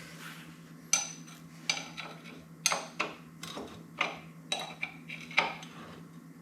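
Metal tools and parts clinking and knocking together, about ten sharp, irregular clinks over a few seconds.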